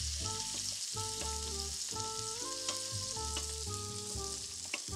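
Food sizzling in hot fat in a frying pan, a steady high hiss. Under it, soft background music of held notes with a low bass note about once a second.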